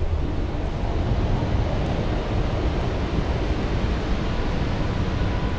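Steady rushing noise from the meditation's ambient sound bed, heaviest in the low end, with faint held tones entering near the end.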